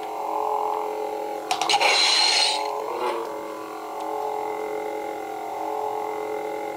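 A custom lightsaber's Ultrasound v2.5 sound board plays its steady electronic blade hum through the small speaker in the hilt. About a second and a half in, a short, crackling clash effect cuts in.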